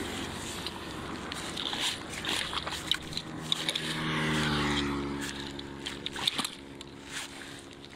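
A motor vehicle passing, its engine hum swelling about halfway through and fading, with scattered scrapes and knocks.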